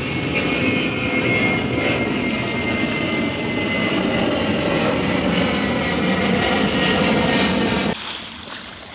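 Jet aircraft flying low overhead: a loud steady engine rush with a thin high whine that slowly falls in pitch. It stops abruptly about eight seconds in.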